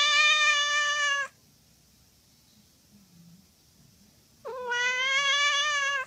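Domestic cat giving two long meows: the first ends about a second in, and the second starts about four and a half seconds in.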